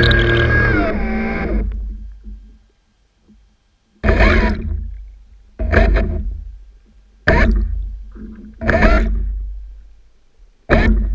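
Background music: guitar chords struck about every one and a half seconds, each ringing out and fading, after an opening phrase with sliding notes.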